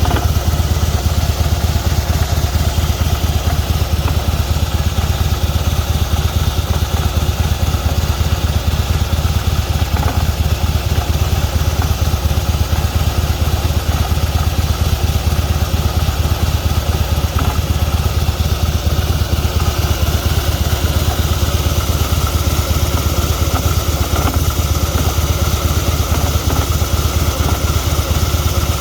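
2016 Harley-Davidson Fat Boy's V-twin engine idling steadily, with a strange noise from one part of the bike that the owner cannot place.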